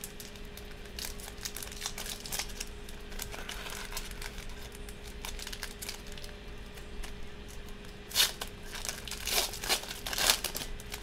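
Foil wrapper of a 2014 Prizm football card pack crinkling in the hands and being torn open. Quiet crinkling at first, then louder tearing and crumpling over the last few seconds.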